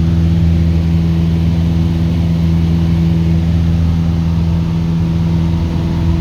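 Light aircraft's piston engine running steadily, its pitch unchanging.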